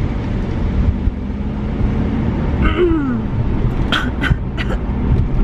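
Steady low rumble of a car heard from inside the cabin, with a woman's short falling 'mmm' of enjoyment about three seconds in as she chews a glazed donut, and a few brief mouth clicks soon after.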